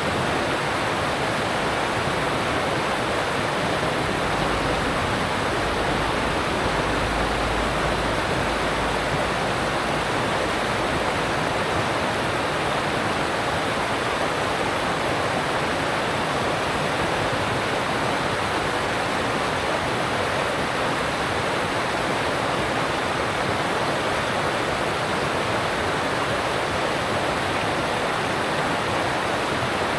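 Alpine mountain stream rushing over rocks: a steady, even rush of water.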